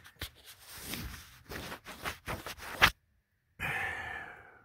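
A run of close rubbing and scraping noises, like something handled or rubbed right at the phone's microphone, for about three seconds, then a breathy exhale that fades out near the end.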